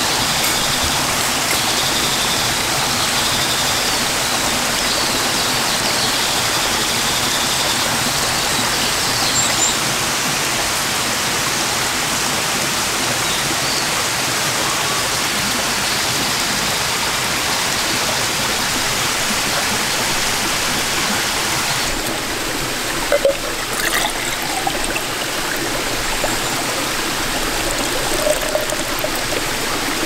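Mountain stream flowing steadily, an even wash of running water. A few light knocks in the last several seconds.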